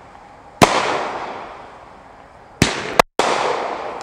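Phantom Fireworks Wicked Willows aerial firework bursting: two sharp bangs about two seconds apart, the second with a smaller crack just after it. Each bang is followed by a noisy tail that fades over about two seconds.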